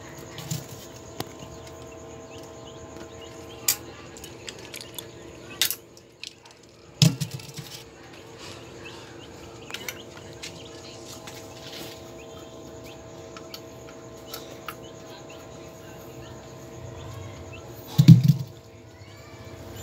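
Scattered clicks and knocks from a screwdriver and a plastic lamp socket being handled over a plywood box, with a louder knock about seven seconds in and the loudest thump near the end. A steady low hum runs underneath.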